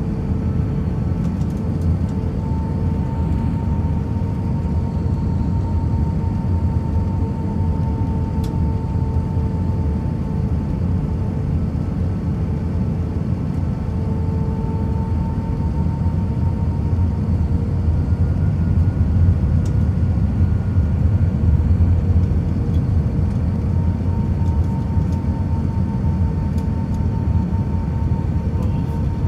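Cabin noise of an Airbus A319-131 on final approach with flaps extended: a steady deep rumble of airflow and its IAE V2500 engines, with a steady hum and a higher tone that wavers slightly. The rumble grows a little louder about two-thirds of the way through.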